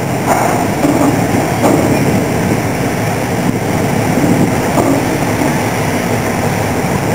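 Car ferry Loch Bhrusda's engines running with propeller wash churning as it holds bow-on against a slipway, a rough steady rumble with a few faint knocks.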